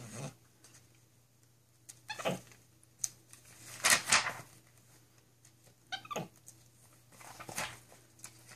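Capuchin monkey giving short squeaky calls, mixed with the rustle of glossy catalog pages being handled and turned. The sounds come as separate short bouts a second or two apart.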